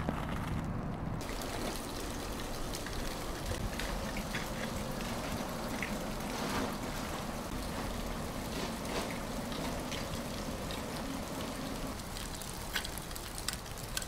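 Steady outdoor noise with trickling water, broken by scattered small clicks that come a little sharper near the end.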